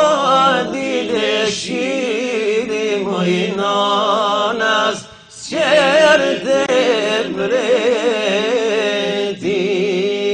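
Male voice singing a long, wavering, ornamented melody without words over a steady held drone note, in an Albanian religious song; the melody breaks off briefly about five seconds in and then resumes.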